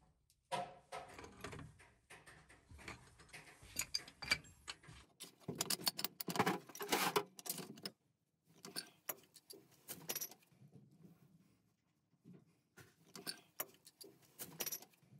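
Pipe wrenches gripping and turning a brass fitting on a copper pipe: metallic clicks, clinks and scrapes in irregular clusters, with short quiet gaps between them.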